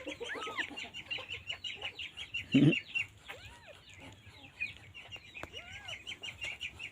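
Kittens mewing, with several short rising-and-falling mews, over a constant chatter of rapid high-pitched chirps. One louder, lower call comes about two and a half seconds in.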